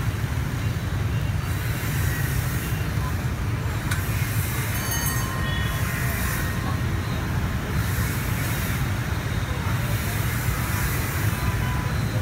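Dense street traffic: the steady rumble of many motorbike and scooter engines passing, with a few brief high tones now and then.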